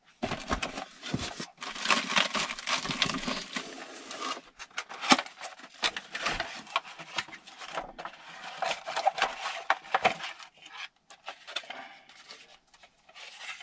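Cardboard and paper packaging rustling, scraping and crinkling as parts are unpacked from a box by hand, with small knocks. It is busiest for the first few seconds, then sparser, with one sharp knock about five seconds in.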